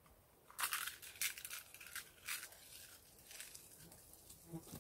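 Faint crinkling and crackling handling noise in short bursts, the loudest cluster about a second in and smaller ones later, as slug deterrents such as plastic bottles and eggshells are handled and set around plants.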